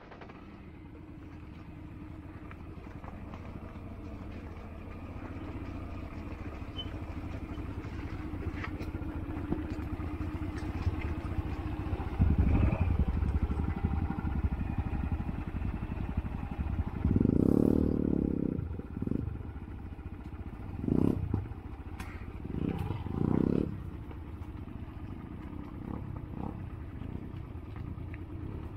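Yamaha XTZ 125 single-cylinder four-stroke trail bike engine running at low speed on a rough dirt track, with several brief louder bursts in the second half.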